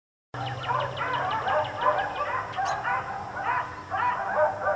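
Several dogs barking, rapid overlapping barks that start abruptly a moment in and carry on without a break.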